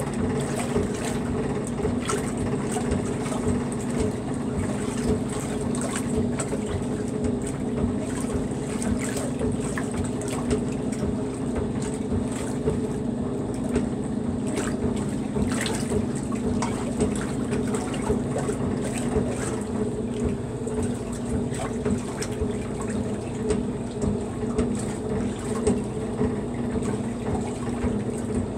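Maytag wringer washer agitating a load: a steady motor and gearbox hum with water sloshing and churning in the tub.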